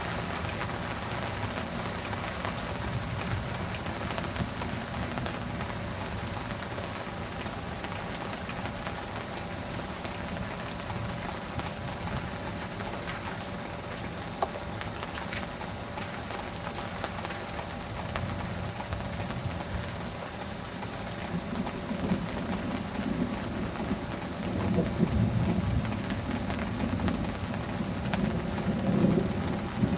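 Heavy rain falling steadily in a thunderstorm, with low rolling thunder swelling up in the last several seconds.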